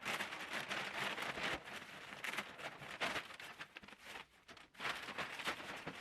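Packaging being handled during an unboxing: irregular rustling and crinkling with small clicks, dropping almost silent for a moment a little past four seconds in.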